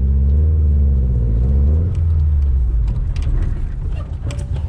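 Subaru Impreza GC8's boosted flat-four engine running, heard from inside the car as a deep, steady rumble. Its pitch rises and falls a little in the first two seconds, and a few light clicks come near the end.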